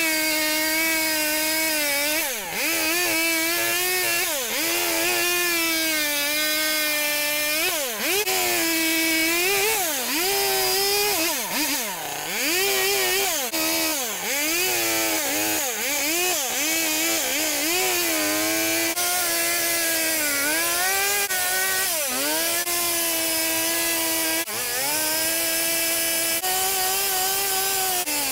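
Gas chainsaw running hard while carving wood. It is held at a steady high pitch through longer cuts, with quick drops and rises in engine speed every second or two as the throttle is let off and opened again.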